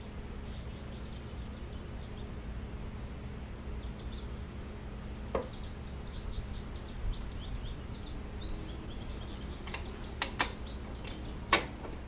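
Steady low hum of a quiet garage with a few scattered light clicks of a long socket wrench and 27mm socket working on the motorcycle's rear axle nut, the sharpest about five seconds in and near the end.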